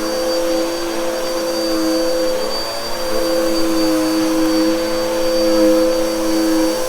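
Bissell vacuum cleaner running steadily over a shag rug, its motor whine holding several tones whose pitch sags and recovers slightly.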